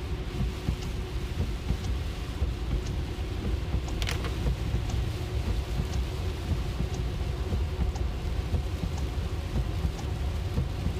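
Road noise in a Tesla at highway speed in heavy rain: a steady low tyre rumble with rain hissing on the car, and one sharp click about four seconds in.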